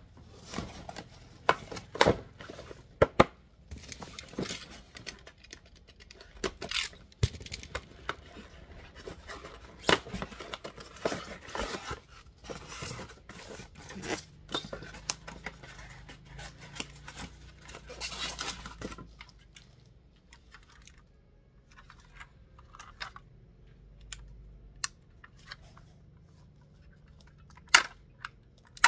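Cardboard boxes and a styrofoam packing tray being handled: rustling, scraping and sharp taps come thick and fast for most of the time, then thin out to scattered small clicks, with one sharp knock near the end.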